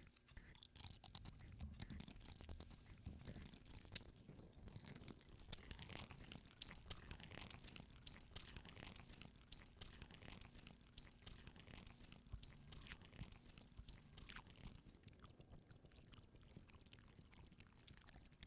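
A person chewing crunchy snack chips: a faint, continuous run of small crunches and crackling clicks.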